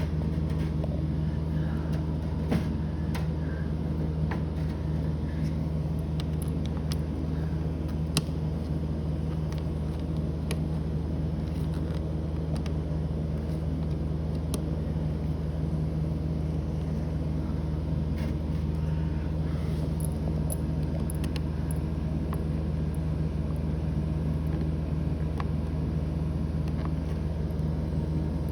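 A steady low mechanical hum throughout, with scattered faint clicks and ticks from a small screwdriver turning a switch-plate screw.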